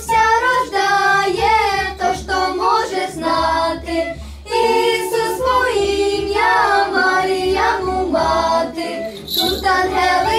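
A small group of women and children singing a Ukrainian Christmas carol (koliadka) together.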